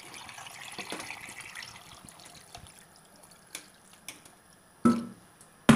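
Water poured from a metal pitcher into a metal pot of beef tripe pieces: a steady splashing fill that tapers off over the first few seconds. A few light knocks follow, with a sharp clunk at the end.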